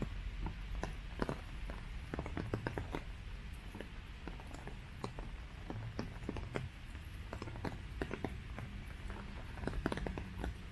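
Rain falling, with many irregular close taps of drops, several a second, over a steady low rumble.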